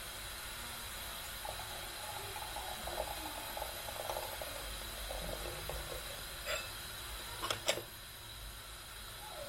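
Water running for a few seconds over a steady background hiss, then a few light clicks near the end.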